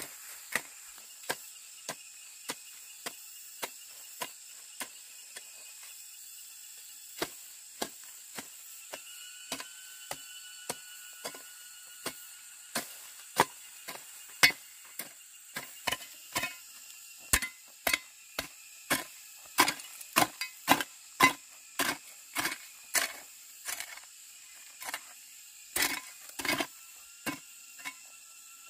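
Repeated chopping strokes of a blade on wood, evenly paced and light at first, then faster and heavier in the second half at about two strokes a second.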